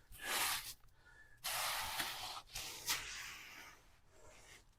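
A hand tool scraping across freshly poured wet concrete to smooth it: about four short scraping strokes, each under a second, with brief pauses between.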